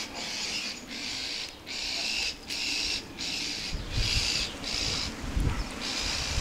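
An animal's high-pitched buzzing call repeated in a steady rhythm, about one and a half pulses a second, each about half a second long, with a couple of soft low thumps about four and five and a half seconds in.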